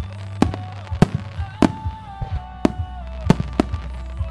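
Aerial firework shells bursting in quick succession, about seven sharp bangs at uneven intervals, over music with steady low bass and held, gliding melody notes.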